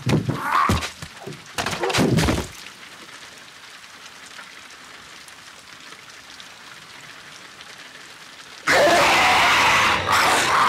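Horror-film creature sound design: sharp cracks and short groaning creaks in the first two seconds, then a low steady hiss, then a sudden loud, harsh blast of noise about nine seconds in.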